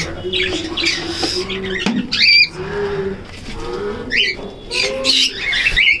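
Caged cockatiels calling: repeated short, high squawking calls, loudest about two seconds in and again near the end, over a lower cooing from other aviary birds.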